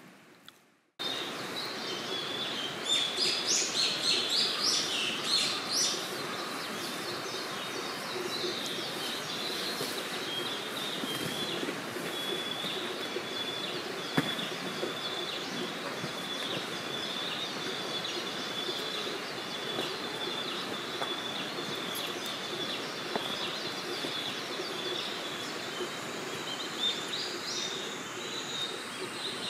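Forest morning ambience starting about a second in: birds calling, with a burst of louder, quickly repeated high calls a few seconds in, over a steady high-pitched trill and a soft background hiss.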